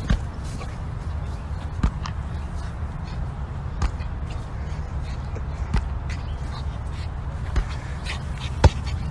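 Hollow thumps of a large inflatable beach ball being struck, about five of them roughly two seconds apart, the sharpest near the end, over a steady low rumble.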